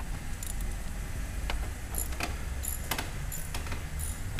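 Scattered light metallic clicks and clinks of hand tools and bolts being worked under a car's dashboard, over a low steady hum.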